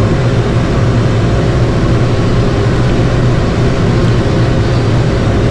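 Mahindra 85P tractor's engine running steadily while pulling a John Deere 459E round baler through hay, a loud, even drone.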